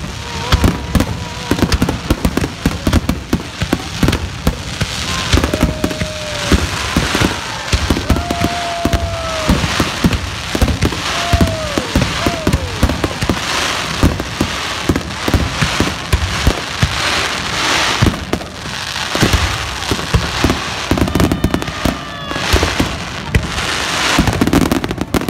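Fireworks display: a dense run of aerial shells bursting, bang after bang over continuous crackling. Between about five and thirteen seconds in, a few brief held tones sound that drop in pitch at their ends.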